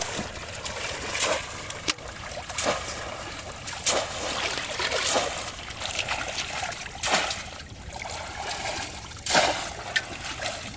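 Shallow water splashing and trickling, with a separate splash every second or so and a louder one near the end.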